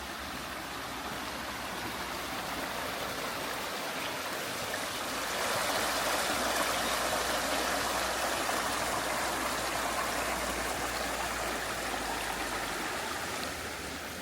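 Mountain stream rushing over rocks: a steady watery rush that swells louder for several seconds in the middle and eases again near the end.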